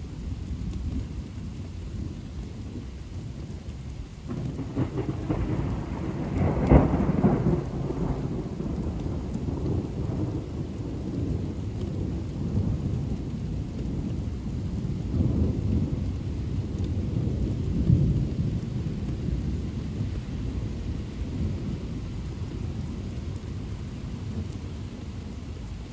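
Thunder rolling over steady rain: a long low rumble builds about four seconds in, is loudest near seven seconds, swells twice more, then fades.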